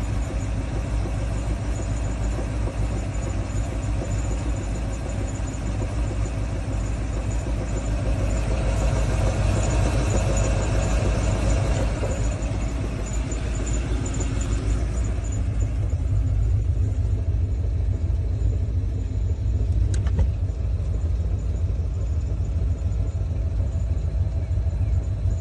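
1991 Ford 351 Windsor V8 idling warm, with the clunking noise from the oil pan area that the owner hears only at warm idle and that goes away when the engine is revved.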